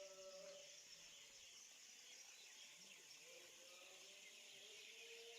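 Faint outdoor ambience: a steady high hiss with faint, wavering tones underneath.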